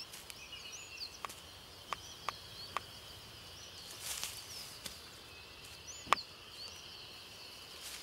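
Faint natural ambience of many small birds chirping and whistling in short high gliding calls over a steady high hum, with a few sharp clicks, the loudest about six seconds in.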